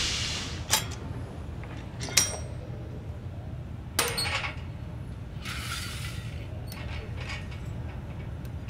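Metal gym equipment clinking: three sharp metallic clinks with a short ring, about a second and a half to two seconds apart, the middle one the loudest, from a cable-machine handle and its carabiner. A brief hiss comes about a second after the last clink, over a low steady hum.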